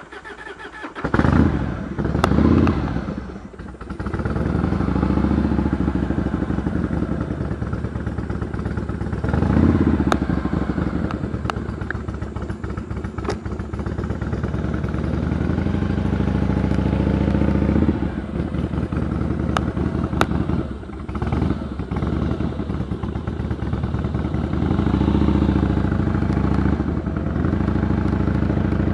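Harley-Davidson V-twin motorcycle engine running, with a few sharp revs in the first seconds, then settling into low-rev running that rises and falls several times. A few sharp clicks cut through it.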